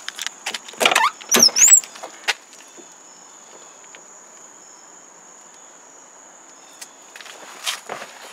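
Car door opening: the handle and latch click, then the door swings open with a short rising squeak, followed by a few lighter knocks as someone gets in.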